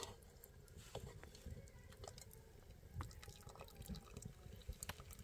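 Faint, scattered drips and small clicks at irregular intervals, with a faint steady tone underneath.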